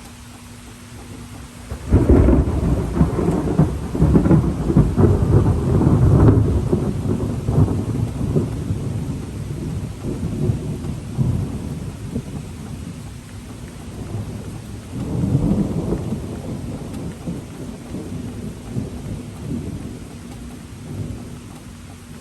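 Steady rain with thunder: a sudden thunderclap about two seconds in that rolls on and slowly fades, then a second, softer rumble of thunder a few seconds later.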